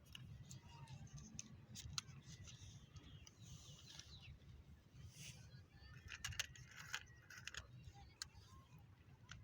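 Faint scattered clicks, taps and small rustles over a low steady hum.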